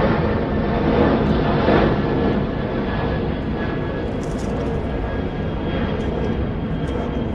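Airplane engines roaring as a landing plane passes close, loudest in the first couple of seconds and then slowly easing off, with a faint steady whine under the roar.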